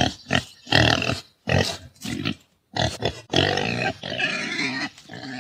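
Wild boar grunting: a run of short grunts, then one longer call of about two seconds near the end.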